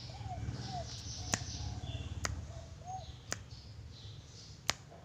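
Zebra dove (perkutut) cooing in a few short arched notes, with four sharp clicks spaced through it over a steady low rumble.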